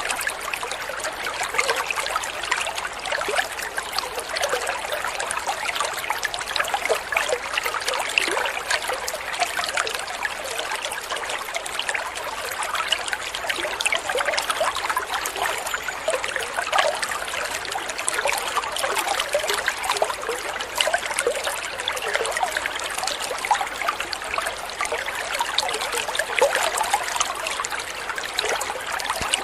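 Water trickling and splashing steadily, with a dense patter of small splashes.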